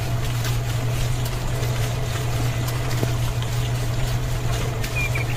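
A steady low hum, like a small motor running, under an even hiss with a few faint clicks.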